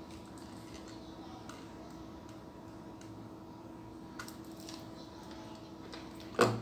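Quiet room with a steady faint electrical hum, and a few faint clicks as a small plastic RC electronics module and its servo wires are handled, with a sharper click near the end.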